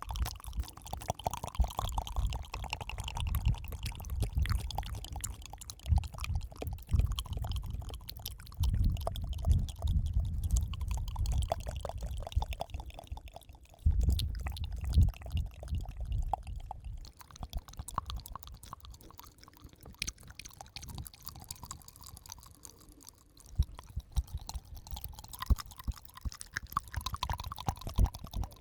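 Close-miked ASMR mouth sounds: dense wet clicks and smacks, with low breathy rumbles swelling and fading every few seconds. No held musical notes are heard.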